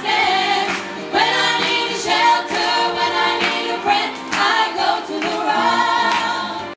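A group of women singing together in harmony, the lead voice through a microphone. The singing breaks off abruptly at the end.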